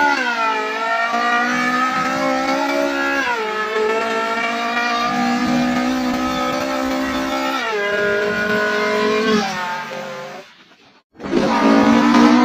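A person's voice imitating a Honda S2000's VTEC engine revving through the gears: long held engine notes with sharp pitch sweeps at each shift. It fades out about two seconds before the end, and after a short silence a new engine imitation begins.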